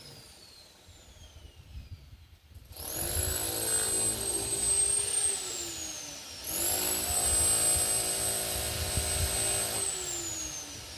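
Outdoor warning siren sounding the rising-and-falling public warning signal. Its pitch falls away at the start and it goes quiet for about two and a half seconds, then it rises, holds, falls and rises again in swells about four seconds apart, falling once more near the end.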